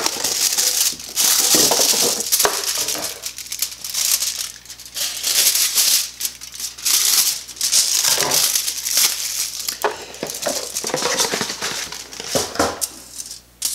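Aluminium foil crinkling and rustling as it is pulled off its roll, cut with scissors and handled, in irregular bursts.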